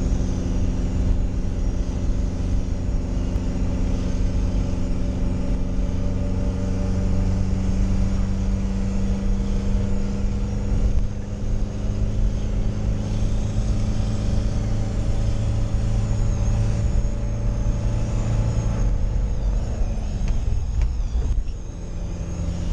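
Fiat Ducato motorhome's engine running hard at speed, heard from inside the cab with road noise, its pitch creeping slowly upward. Near the end the engine note falls and the level dips briefly before it picks up again.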